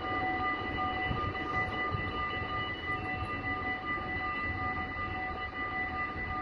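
Electronic warning bells of a Dutch automatic half-barrier level crossing ringing steadily as the barriers lower, the warning that a train is approaching. A low rumble of background noise runs underneath.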